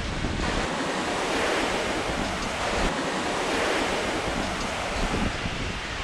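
Atlantic Ocean surf breaking and washing up the beach, a steady rush that swells twice, with wind rumbling on the microphone.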